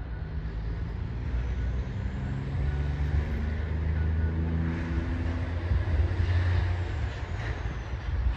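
Train locomotive running nearby: a steady low engine drone, a little louder in the second half.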